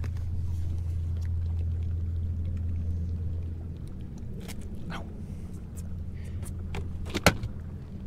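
Low steady hum of a boat motor that drops away about three and a half seconds in, followed by a few clicks and knocks as a smallmouth bass is netted and brought aboard, with one sharp knock near the end.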